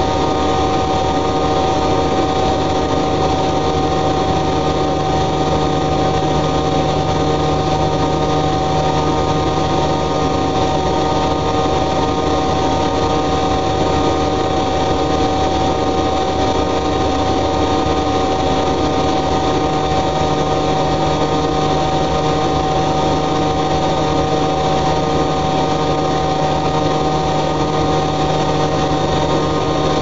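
Two Siemens Siwamat washing machines, an IQ 716 and a 7163, running together with their drums turning. A steady motor whine sits over an even mechanical rumble, and a lower hum drops out for a few seconds midway before coming back.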